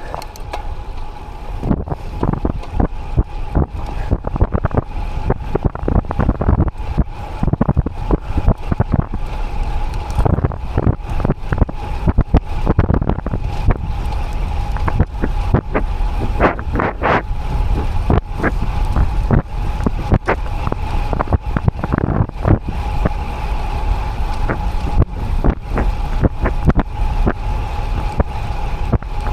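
Heavy wind buffeting on an action camera's microphone as a road bike descends at speed, an irregular rumbling rush with a thin steady tone running underneath.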